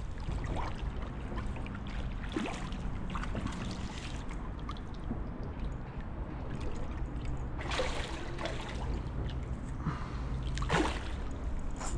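Water splashing and trickling as a hooked chub fights at the surface beside a kayak, with two louder splashes about eight and eleven seconds in, over a low steady rumble.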